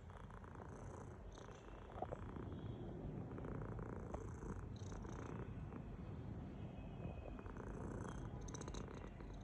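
Sleeping cat's faint, steady low rumble as it breathes, which the owner calls snoring.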